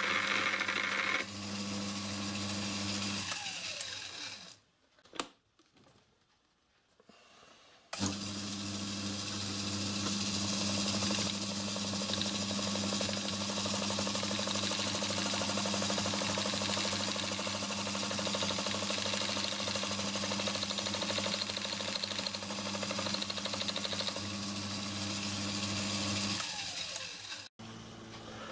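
Small belt-driven watchmaker's lathe and its electric motor running steadily with a hum. It is switched off about three seconds in and spins down to quiet, starts again suddenly at about eight seconds, runs on steadily, and spins down once more near the end.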